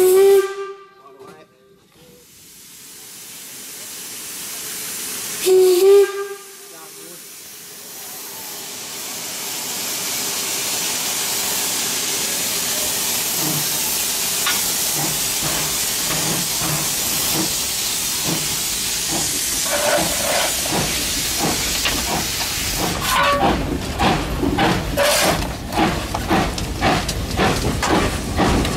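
Steam locomotive K 88's whistle blows two short blasts, one right at the start and another about six seconds in. Then steam hisses steadily louder from the open cylinder drain cocks as the engine starts its train, with exhaust chuffs beating more strongly from about twenty seconds in.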